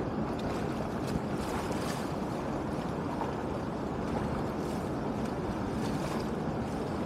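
Muddy water rushing steadily through a breach in an earth dam, with a few brief splashes.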